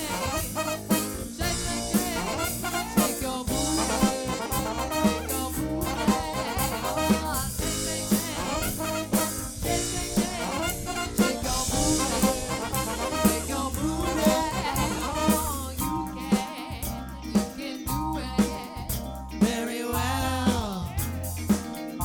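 Live soul band playing, with a steady drum-kit beat under the music.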